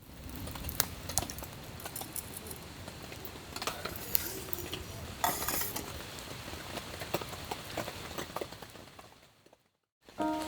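Scattered light clinks and knocks of small hard objects being handled, over a low background rumble, fading out about a second before the end.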